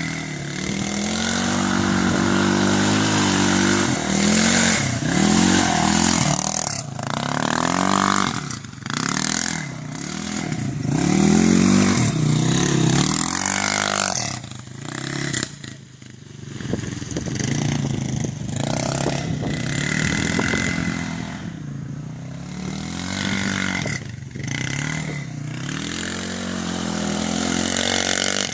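A vehicle engine revving up and down again and again, its pitch rising and falling every couple of seconds. Underneath runs a constant hiss of tyres scrabbling and loose dirt and stones clattering as the vehicle drifts off-road.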